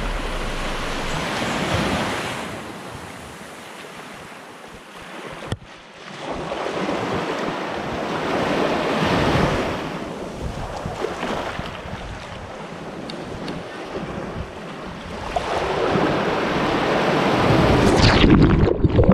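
Small sea waves surging and washing over a camera at the water's edge, swelling and ebbing in slow surges several seconds apart, loudest near the end as the water covers the lens.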